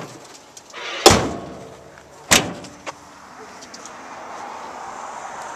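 Steel hood of a 1971 Plymouth Road Runner slammed shut: a loud bang about a second in, then a second, sharper bang a little over a second later.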